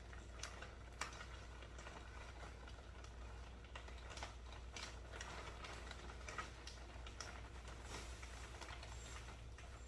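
Faint, scattered light clicks and rustles of a peace lily's leaves and pot being handled as the plant is groomed, over a steady low hum.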